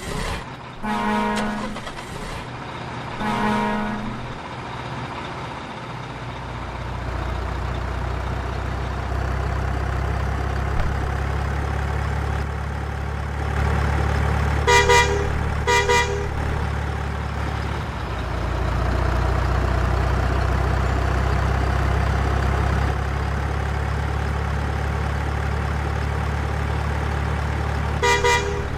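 Truck engine running with a steady low rumble that starts about six seconds in and dips briefly around eighteen seconds. A truck horn toots in pairs: twice near the start, twice at a higher pitch about halfway, and once more near the end.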